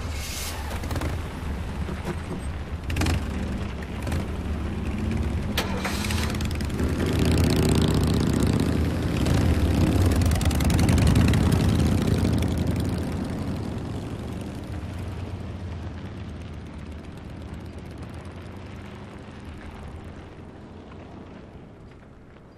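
Car engines start and pull away. The low engine sound swells for several seconds and then fades steadily into the distance. Several sharp knocks come in the first few seconds.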